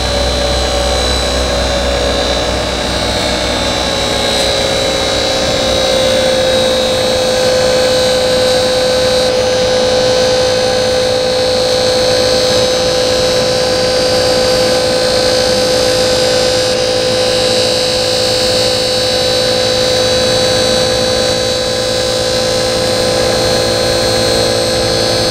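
Hydraulic pump of a boat lift trailer running steadily while it raises the lift. The steady whine settles a little lower in pitch over the first few seconds, then holds.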